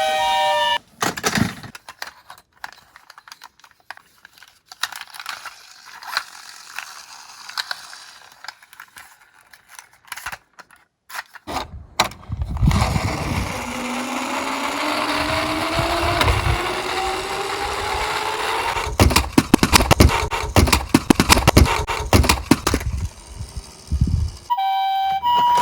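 Die-cast Tomica toy cars on a plastic slope track. Scattered light clicks and scrapes come first, then a rumbling roll with a whir that rises slowly in pitch, then a run of quick clattering knocks near the end.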